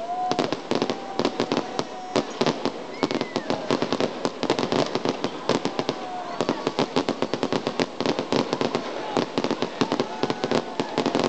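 Fireworks display: shells bursting overhead in a dense, continuous run of cracks and bangs, many a second, with crowd voices underneath.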